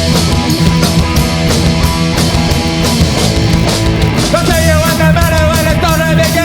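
Live punk rock band playing a fast, loud instrumental intro of distorted guitars, bass and drums. A high held note comes in over it about four seconds in.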